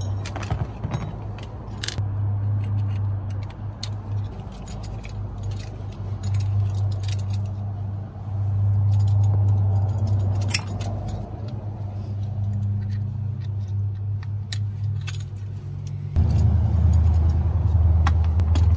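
Small metal parts clinking and rattling as a bracket, screws and a boost control solenoid are handled and fitted by hand, with many short sharp clicks. A steady low rumble runs underneath and grows louder near the end.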